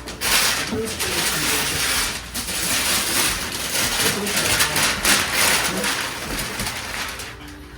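Gift wrapping paper crinkling and tearing as a present is unwrapped, a loud dense rustle with quick crackles that dies down near the end.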